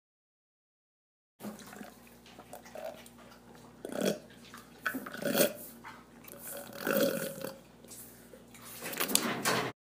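Chimpanzees eating: low food grunts and wet slurping, starting suddenly about a second and a half in, with four louder grunts spaced roughly a second and a half apart.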